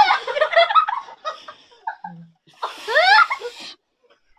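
People laughing loudly in shrill, rapid, rising peals, in two bouts: one at the start and another about two and a half seconds in, which stops just before the end.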